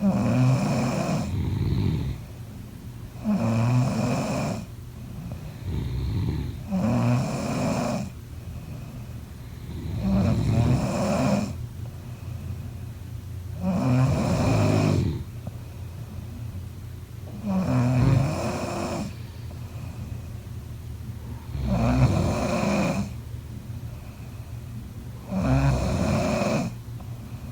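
Someone snoring steadily, about eight snores with one roughly every three and a half seconds and quieter breathing between them.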